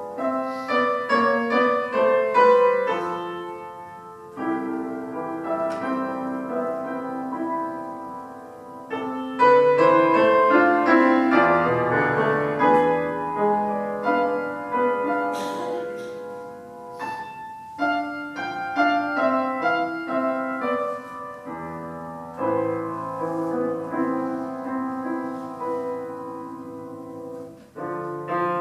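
Solo piano playing a flowing piece in phrases that swell and fade: softer around four seconds in, fuller and louder chords from about ten seconds in, and quieter again near the end.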